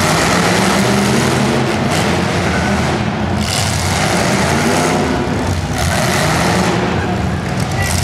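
Several demolition derby cars' unmuffled engines running loudly together, their pitch rising and falling as they rev.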